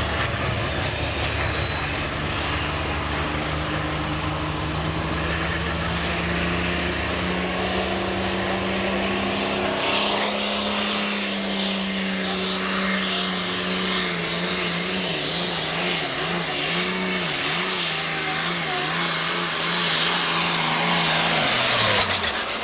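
Turbocharged diesel engine of an International 1026 pulling tractor at full throttle, engine pitch climbing and a high turbo whine rising over the first ten seconds, then holding steady under load as it pulls the sled, the engine pitch wavering now and then. Right near the end the throttle comes off and both the engine and the whine fall away.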